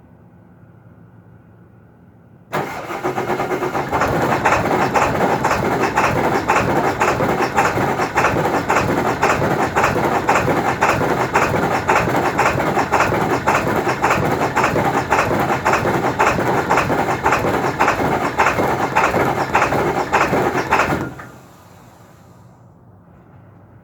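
2002 Ford F-350 Super Duty's 7.3 L Power Stroke V8 diesel cranking on the starter with a steady pulse of a few beats a second for about eighteen seconds. It never catches, and the cranking stops abruptly. This is a hard start caused by a bad glow plug relay.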